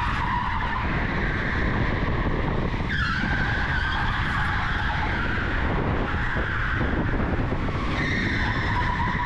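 Onboard sound of an electric go-kart lapping: the electric motor's whine falls about three seconds in and climbs again near the end, over a steady rumble of tyre and wind noise.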